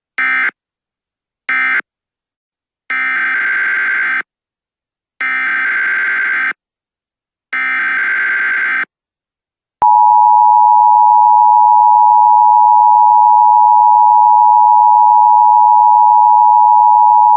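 Emergency Alert System tones. First come two short buzzy digital data bursts, which close the previous message. Then come three longer buzzy data bursts, the header of a new alert, and from about ten seconds in the loud, steady two-tone EAS attention signal.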